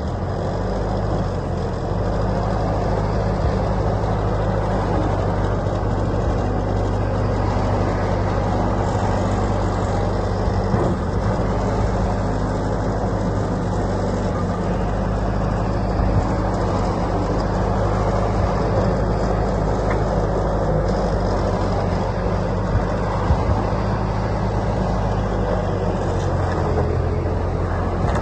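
Bobcat S510 skid-steer loader's diesel engine running steadily, with a few short knocks along the way.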